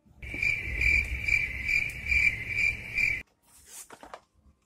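An insect, close and loud, chirping in a high pulsing trill of about two pulses a second. It starts suddenly and stops suddenly about three seconds in.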